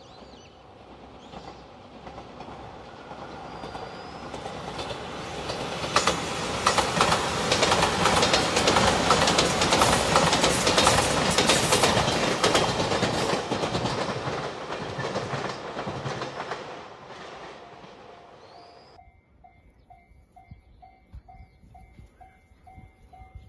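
An Anpanman-liveried Shiokaze limited express electric train passing, its sound building over several seconds to a dense clatter of wheels over rail joints at its closest, then fading away. After a sudden cut near the end, a level-crossing warning bell dings steadily, about two strokes a second.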